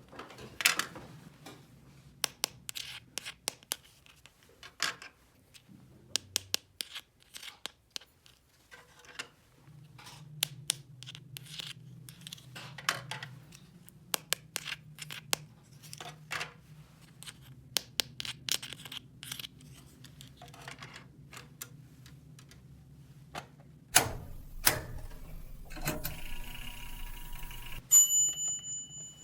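Small plastic toy pieces handled and set down: irregular light clicks and taps, with a rattling, buzzing stretch about three-quarters of the way through and a short high electronic beep near the end.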